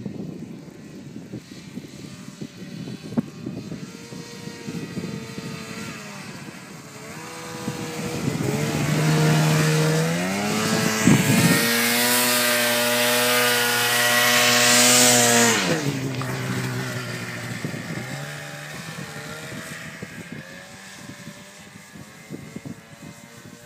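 Polaris 800 Switchback Assault snowmobile's two-stroke twin engine pulling through deep powder. Its pitch climbs as the throttle opens, holds high and steady at its loudest while the sled passes close, then drops sharply when the throttle comes off, about two-thirds of the way through. After that it runs fainter as the sled moves away.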